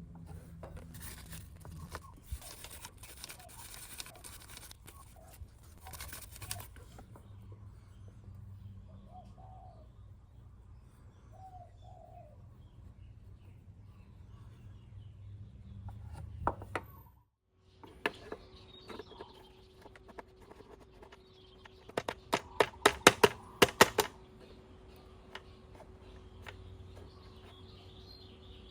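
Hand-tool and parts handling: scattered metallic clicks and scrapes, then a quick run of loud sharp clicks about three-quarters through, over a faint steady hum.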